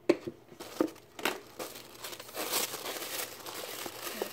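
Handling of a gift box, with a few sharp knocks in the first second and a half, then tissue paper rustling and crinkling as it is pulled out of the box.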